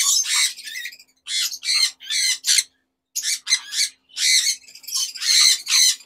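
Conures screeching, over a dozen short harsh calls in quick runs with brief pauses. The birds are excited because they know soft food is coming.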